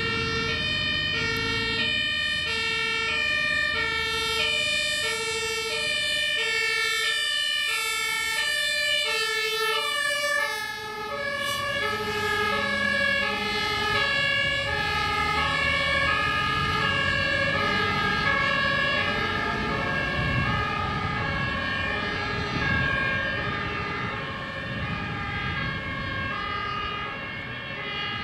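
German two-tone emergency siren alternating high and low on a white MAN emergency truck driving past, with its truck engine running underneath. The siren's pitch drops about ten seconds in as the truck passes.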